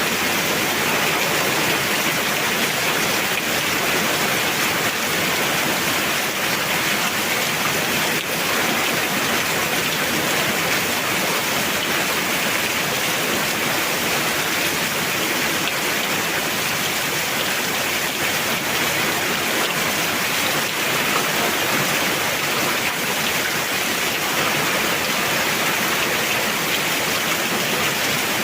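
Heavy rain pouring down, an even, unbroken hiss that stays steady throughout.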